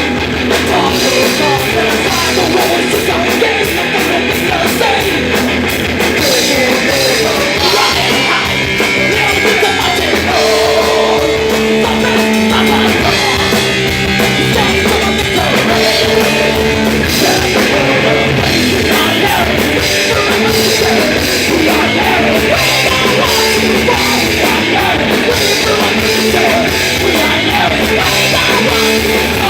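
A punk-rock band playing a song live: loud, unbroken music of guitars and drums with singing.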